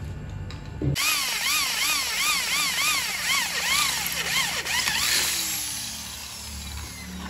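Hand-held electric drill boring into the steel frame of a bending machine, starting about a second in; the motor's whine swings up and down in pitch in quick repeated arcs, then winds down after about five seconds.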